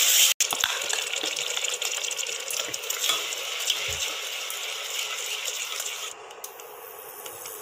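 Steel spoon stirring thick ground masala paste in a pressure cooker. Frequent small clinks and scrapes of the spoon on the metal pot come over a faint sizzle of the paste frying in sesame oil.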